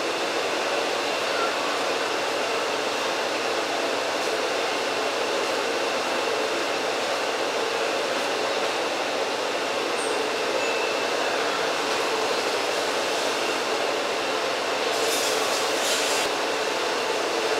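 Steady rushing background noise with no rhythm, with a few short high hissing sounds near the end.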